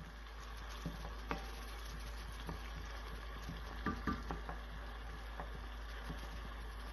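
Diced onion sizzling gently in oil and bacon fat in a nonstick frying pan, cooking until translucent. A wooden spoon stirs it, with a few light knocks against the pan about a second in and again around four seconds in.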